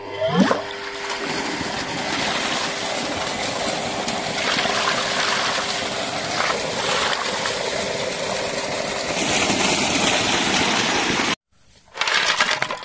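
Water gushing steadily out of an irrigation pipe and splashing into and over an aluminium pot as it fills, with a faint steady hum beneath it. The water sound cuts off abruptly about eleven seconds in.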